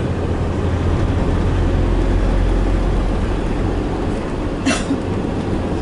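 Steady low rumble of a moving minivan heard from inside its cabin: engine and tyre road noise while driving.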